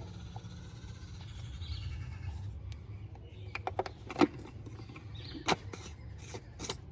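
Scattered clicks and knocks as the N46 engine's oil filter housing cap, with a new filter fitted, is set back into its housing, over a steady low hum. There are a few clicks a little over halfway through, a sharper knock after that, and one more near the end.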